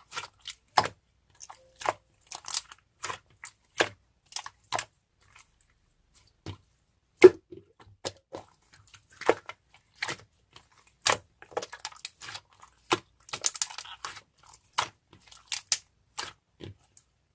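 Irregular crisp crunches and clicks, a few a second, with a denser crackly run about three-quarters of the way through.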